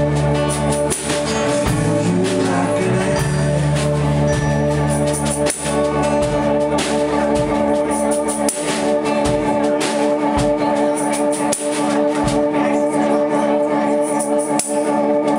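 Live rock band playing an instrumental passage with no vocals: strummed acoustic guitar over held guitar chords, electric bass, and a drum kit with cymbals. The deep bass thins out about halfway through.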